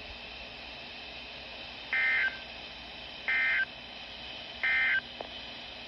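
Emergency Alert System end-of-message code: three short bursts of data tones, each about a third of a second and about 1.3 s apart, over a steady faint hiss. They signal the end of the warning broadcast.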